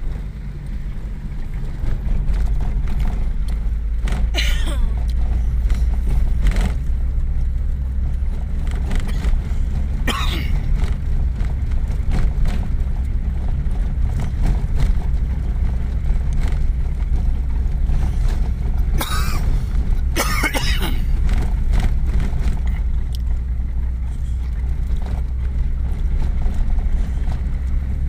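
Inside a vehicle's cab driving on a dirt road: steady low engine and road rumble, with a few brief rattles or knocks from bumps along the way.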